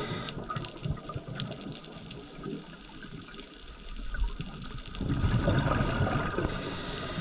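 Underwater sound of scuba breathing: the rushing gurgle of exhaled bubbles and regulator, swelling about five seconds in. Background music comes in faintly at the start and again near the end.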